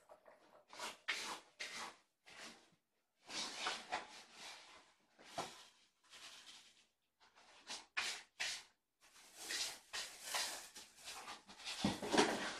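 Cat litter being scooped in a litter box: a run of short gritty scraping and rustling strokes with brief gaps between them, coming closer together and louder near the end.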